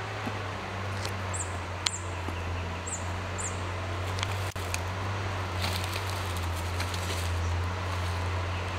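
A small bird gives four very short, very high-pitched down-slurred call notes in the first few seconds, over a steady low hum.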